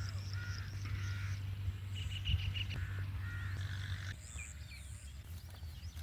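Birds calling: a series of short repeated calls, with a quick run of high notes in the middle, over a low steady rumble that eases off about four seconds in.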